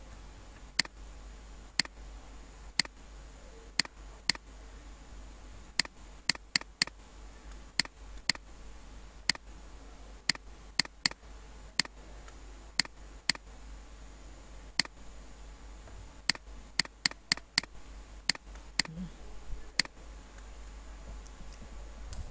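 Computer mouse button clicking: sharp single clicks, mostly about a second apart with a few quick runs of three or four, over a faint steady low hum.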